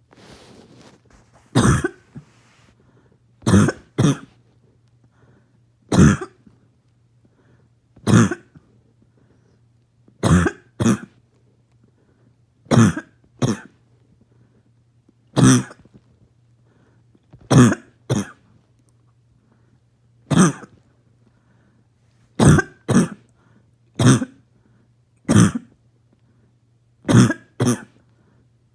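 A person's harsh barking cough, repeated in single or double coughs about every two seconds.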